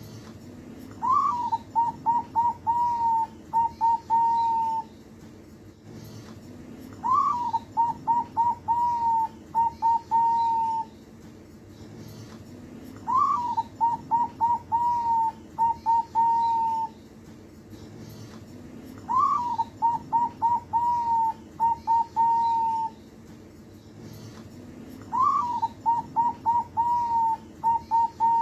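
Young zebra dove (perkutut), about two months old, singing its cooing song five times, about every six seconds. Each phrase opens with a rising note, then a quick run of short coos and a few longer held ones.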